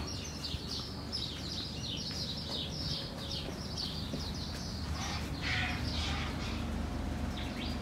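Small birds chirping: a quick, busy run of short, high, downward-sliding chirps that goes on almost without a break.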